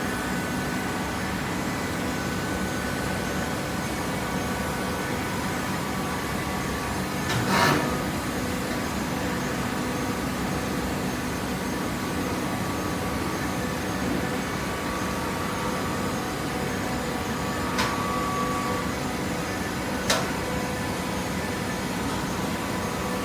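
Hydraulic waste paper baler running with a steady machine hum. A louder, half-second rush of noise comes about a third of the way in, and two sharp clicks come later.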